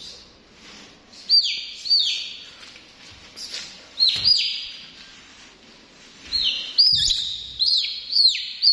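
Domestic chick peeping: short, high peeps that each fall in pitch, singly and in pairs, coming thicker and faster over the last few seconds.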